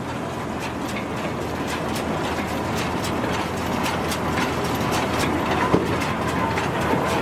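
New Holland 648 round baler running off a tractor: steady machinery noise with repeated rattling clatter, slowly growing louder.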